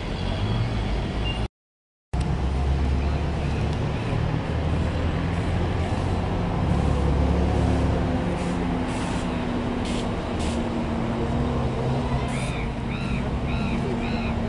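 Steady low rumble of road traffic and a running vehicle engine. Near the end, a run of short chirps repeats about twice a second.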